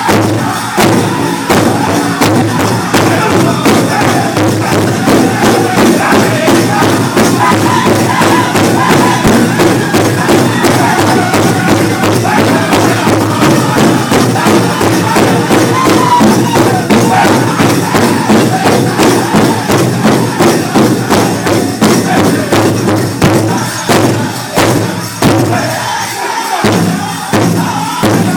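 A powwow drum group beats a big drum in unison in a steady, fast beat while the singers sing a men's chicken dance song. Crowd noise sits underneath.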